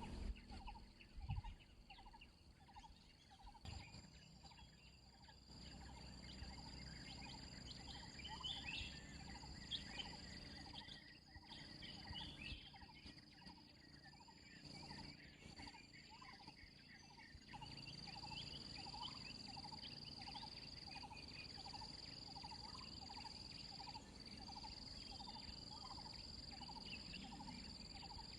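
Faint outdoor nature ambience: a steady high-pitched insect drone, a short animal call repeated regularly about two or three times a second, and scattered bird chirps.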